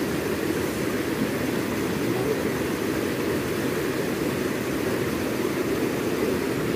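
Steady rushing of a fast-flowing rocky stream, an even noise that does not change.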